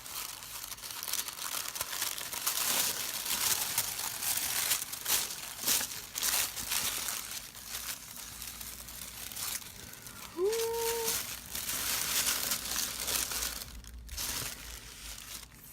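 Paper packaging crinkling and rustling irregularly as items are unwrapped and handled, with a few sharper tearing sounds.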